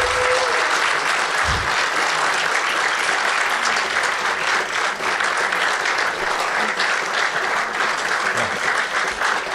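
A full hall audience applauding, steady sustained clapping throughout.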